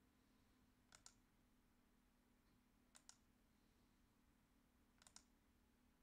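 Computer mouse clicked three times, about two seconds apart, each a quick pair of clicks as the button goes down and up. The clicks are faint, over a low steady hum.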